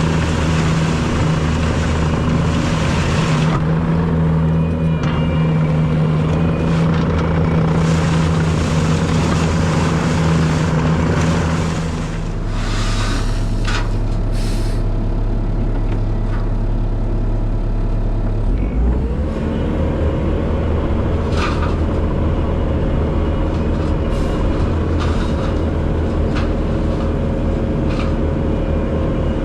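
Bobcat T770 track skid steer's turbo-diesel engine running at working speed, heard from on the machine, with scattered clicks and crunches over it. Partway through, the engine note drops lower for several seconds, then climbs back up.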